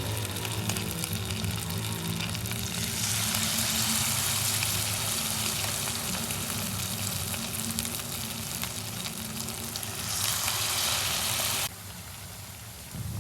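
Tofu frying in hot oil, a steady crackling sizzle that grows louder about three seconds in and cuts off abruptly near the end.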